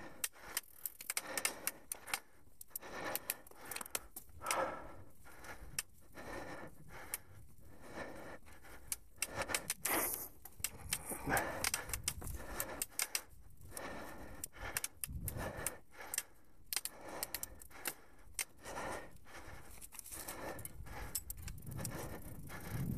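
Mountain bike rattling and clicking as it rolls over a rough, leaf-covered dirt trail: quick irregular clatters and jangles from the bike, over the rustle of tyres on leaves and dirt, with a low rumble building near the end.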